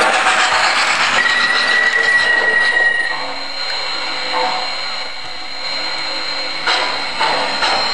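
MTH RailKing O scale Blue Comet steam locomotive and cars running on three-rail track, with wheel and motor noise clattering on the rails. A thin steady squeal sounds for about two seconds from about a second in, and the noise drops at about three seconds as the train moves away, then rises again near the end.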